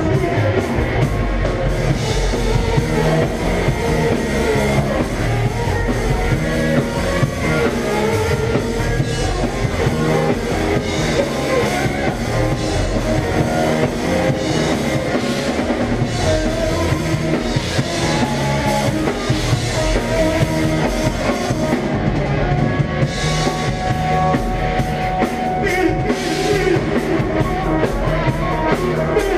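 A rock band playing live: electric guitar over a drum kit with a steady beat.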